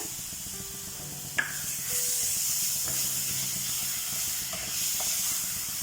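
Papaya halwa mixture sizzling in ghee in a pan: a steady hiss that grows a little louder about two seconds in, with a single sharp click shortly before.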